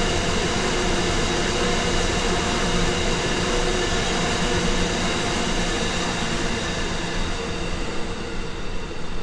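Grain hopper wagons of a freight train rolling past on the rails: a steady rolling rail noise with a few thin steady tones in it. It grows uneven and eases off near the end as the last wagons go by.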